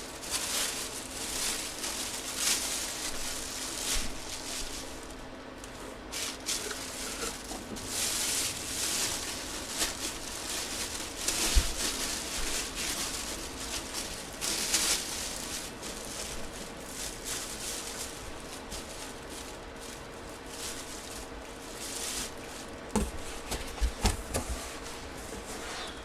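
Intermittent rustling and handling sounds, in swells about a second long, with a few light knocks near the end.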